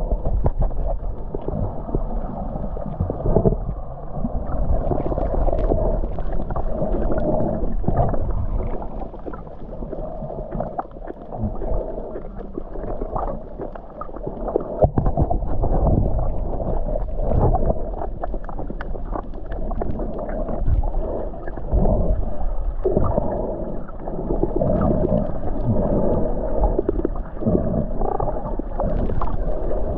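Muffled underwater sound picked up by a submerged camera: water moving and gurgling around it, with scattered short knocks and clicks.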